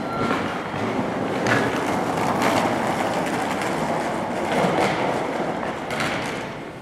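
Electric train standing at a station platform: a steady rushing noise with a few sharp knocks.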